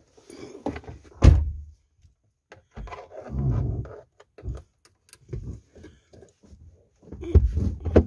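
A car door shutting with a solid thud about a second in, then handling noises inside the car's cabin: rustling, light clicks and knocks, and another heavy thump near the end.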